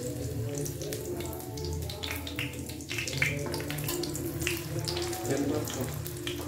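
Oil crackling and sizzling around a martabak shallow-frying in a non-stick pan, with the fork and wooden spatula touching the pan as it is turned. Background music plays underneath.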